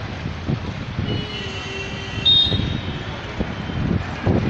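Road traffic noise, a steady rumble of vehicle engines with irregular surges. A short, high-pitched beep sounds a little past two seconds in.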